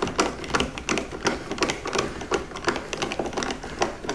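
Screwdriver turning the Phillips screw that holds down the metal cover of a dishwasher's electrical junction box, with an even run of clicks about three a second.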